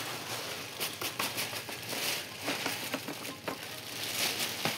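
Handling noise: rustling and crinkling with a string of small, irregular knocks and clicks as parts are pulled out and moved about at the base of a home-built green wall.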